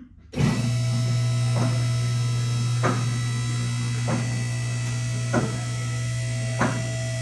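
Two-post car lift's electric hydraulic pump motor switching on and running with a steady hum. Sharp clicks come about every second and a quarter, typical of the carriage safety locks ratcheting past their stops as the arms rise.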